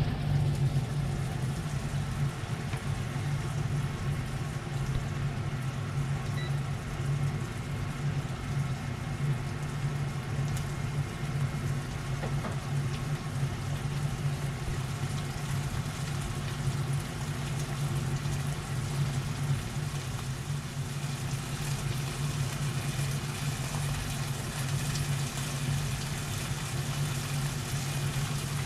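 Steady hum of a kitchen appliance's motor running, unchanging throughout.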